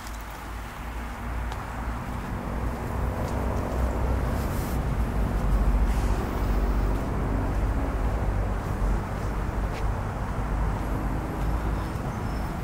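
Low rumble of road traffic, swelling over the first few seconds and then holding steady.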